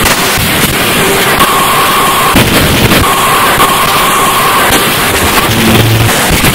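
Harsh digital noise music: a loud, dense wall of crackling static, with a thin high tone cutting in and out several times and a brief low hum near the end.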